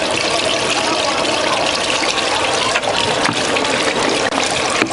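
Rebar threading machine running, its rotating die head cutting a thread onto the end of a steel reinforcing bar with coolant splashing over it: a steady hissing, spattering noise with a few sharp clicks late on.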